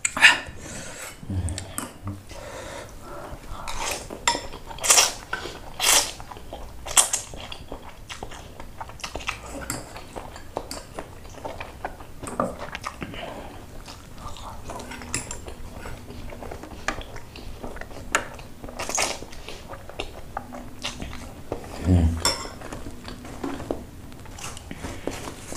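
Close-up eating sounds: a metal fork and spoon clinking and scraping against a ceramic noodle bowl and a stone mortar plate, with irregular sharp clicks, a few louder, between bouts of chewing.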